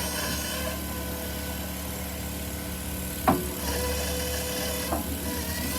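Mammut SK650 electric skid steer working hard, its electric drive and hydraulics giving a steady whine while the bucket digs into hard clay and limestone. A sharp knock a little past halfway through is the loudest sound, with a smaller knock near the end.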